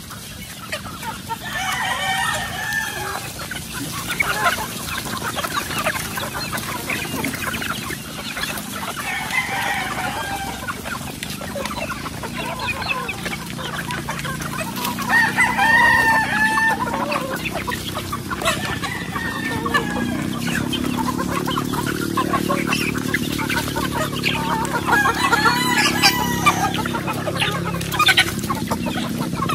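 A large flock of chickens clucking around their feed, with roosters crowing about four times. A steady patter of small clicks runs under the calls, from pecking and scratching among dry leaves.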